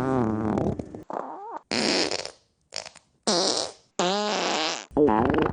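A quick run of about seven short human farts, one after another with brief gaps; some are pitched and rippling with a wavering pitch, others are airy and hissing.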